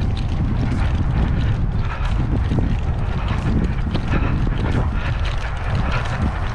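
Wind buffeting the microphone, a continuous low rumble with a rough hiss over it.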